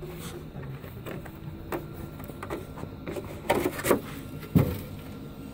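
Handling noises from hands moving gear and an RC truck's chassis: scattered soft clicks and rustles, then a cluster of sharp knocks and rattles past the middle, the loudest a low thump near the end.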